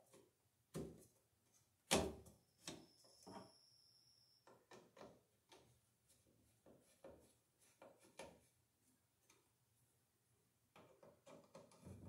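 Scattered light clicks and knocks of a plastic smoke-detector base plate being fitted against a ceiling electrical box and screwed on with a screwdriver. The loudest knock comes about two seconds in, followed by a run of small ticks.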